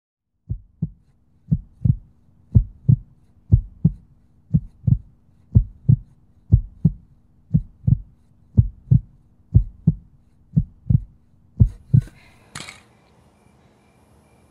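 Heartbeat sound effect: deep paired lub-dub thumps, about one heartbeat a second, twelve in all. It stops about twelve seconds in, giving way to a faint steady hiss broken by one short, sharp noise.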